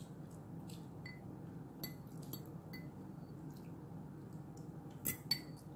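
Scattered light clicks and clinks of a metal fork and fingers against ceramic plates and a bowl, with two sharper clinks near the end.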